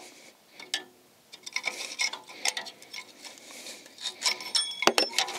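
Long pliers clicking and scraping on the rusty parking-brake shoe hold-down clips of a drum-in-hat brake backing plate as the clip is gripped and turned. Scattered small metallic ticks begin about a second and a half in, with a sharper pair of clicks near the end.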